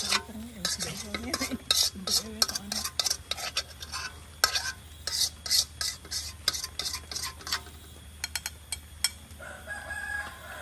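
A metal utensil scraping and scratching the inside of a metal wok in quick, irregular strokes, then a few light clicks about eight seconds in. This is the last fried egg being scraped out of the wok.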